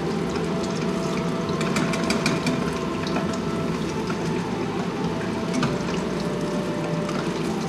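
Tempura-battered garfish deep-frying in hot oil: a steady sizzle with scattered sharp crackles, busiest about two seconds in.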